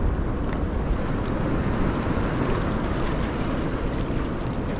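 Strong wind blowing across the microphone, a steady low rumble, with the sea's surf washing against the breakwater rocks underneath.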